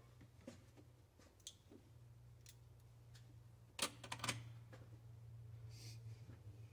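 Faint, scattered clicks and light clinks of hand tools on metal, with a sharper cluster about four seconds in, over a low steady hum.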